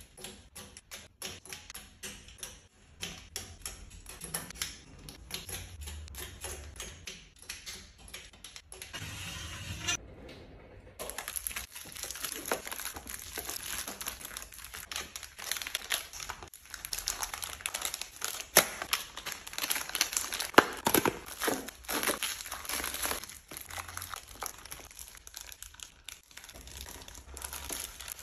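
Plastic packaging crinkling and tearing, with many small clicks and taps of containers and lids being handled, as food is unpacked and restocked. A short break about ten seconds in, then denser crinkling.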